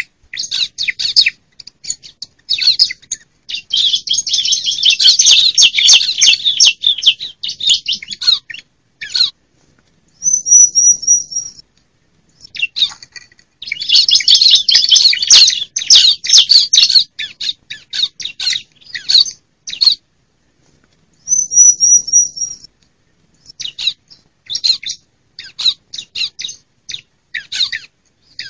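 Female bar-winged prinia (ciblek) calling: bursts of short, high chattering notes, two long runs of rapid chatter lasting several seconds, and twice a brief high trill of repeated notes, with short silences between. This is the female's call, the kind used to stir males into answering.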